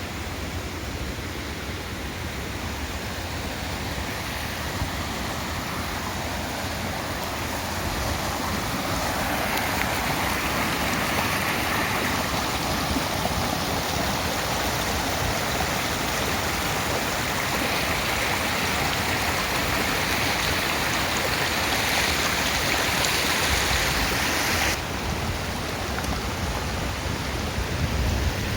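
Stream water rushing and splashing over stones in a steady hiss. It gets louder partway through, then drops abruptly to a softer rush about 25 seconds in.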